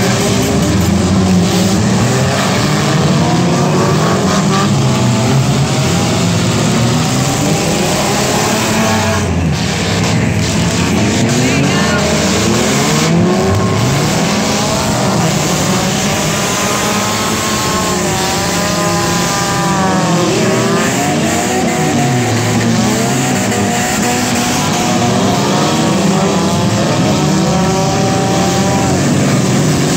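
Many demolition-derby car engines running hard on a figure-8 dirt track, overlapping without a break. Their pitches keep rising and falling as the cars accelerate and lift off.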